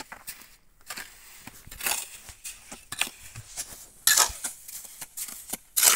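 Small steel trowel scraping and scooping sand-cement mortar across a concrete floor in a series of short scrapes. The loudest come about four seconds in and near the end.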